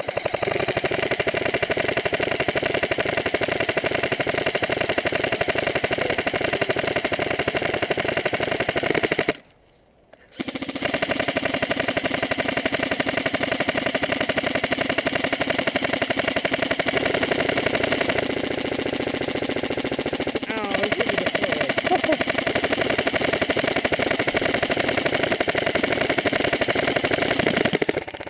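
Airsoft M4 rifle firing full-auto in long continuous strings, a rapid, even chatter of shots, broken once near ten seconds in by a pause of about a second before firing resumes.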